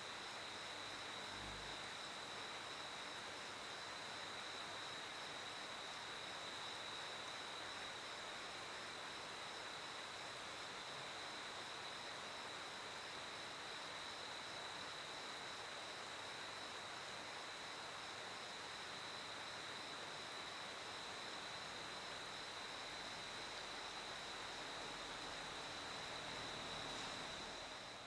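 Crickets chirping in a continuous, steady high trill over a faint background hiss.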